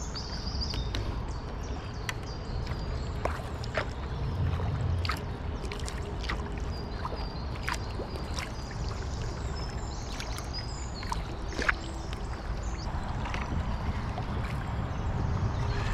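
Kayak paddle strokes: the blades dip and pull through the water, and drips and small splashes come off them at irregular intervals over a low steady rumble.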